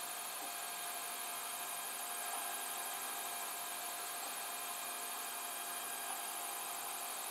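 3D printer running mid-print: a steady whir and hum from its cooling fans and stepper motors as the print head moves over the bed, with a few held tones over an even hiss.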